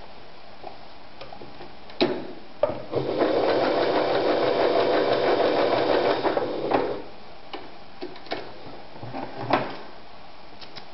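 Singer Rumina 3000 sewing machine stitching through fabric for about four seconds, starting about three seconds in. Several sharp clicks come before and after the run.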